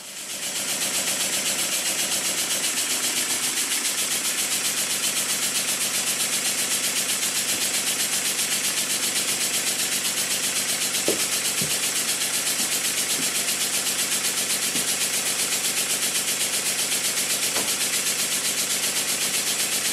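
Circa-1896 single-cylinder slide-valve model steam engine running on compressed air, with a steady hiss and a rapid, even exhaust beat. It runs smoothly without knocking, its valve timing set so that early admission of the air cushions the reciprocating parts.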